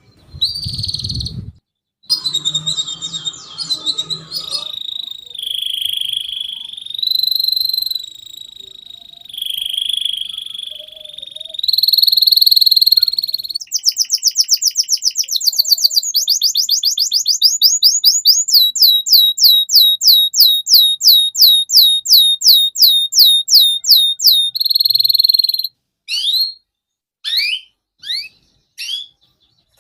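Domestic canary singing a long song: sustained whistled notes and rolls, then a fast trill of rapidly repeated down-slurred notes for about ten seconds, and near the end a few separate falling whistles. A low rumble sounds in the first second and a half.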